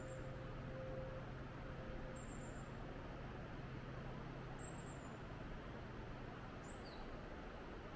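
Steady rush of river water flowing through a rocky gorge, with a faint low hum that fades out over the first few seconds.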